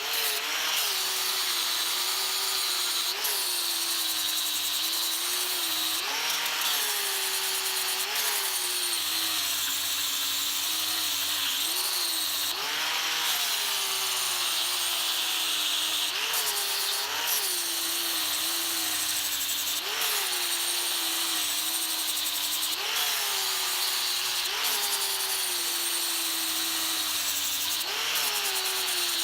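Electric grinder motor running continuously while grinding a steel hammer head. Its pitch jumps up briefly every few seconds as the work comes off the abrasive, then sags again as the work is pressed back on.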